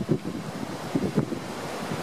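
Waves breaking on a shallow beach under tropical-storm wind, which buffets the microphone in uneven gusts.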